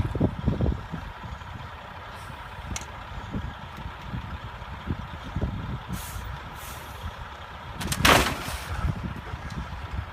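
Low, steady rumble of highway truck and car traffic, with heavy buffeting in the first second. About eight seconds in there is a short, loud hiss.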